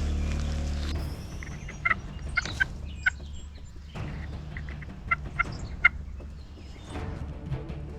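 Wild turkey call notes: a cluster of four short, sharp notes about two to three seconds in, then three more about five to six seconds in, over a low steady rumble.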